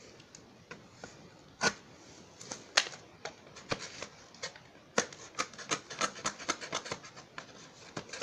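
A small knife blade cutting open the taped flap of a cardboard shipping box. It makes short scratchy clicks, a few at first, then coming thick and fast from about five seconds in.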